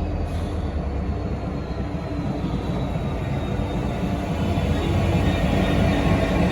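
Freight train of Class 66 diesel locomotives and a rail milling train passing, a steady low engine hum and rumble of the train on the rails, growing a little louder near the end.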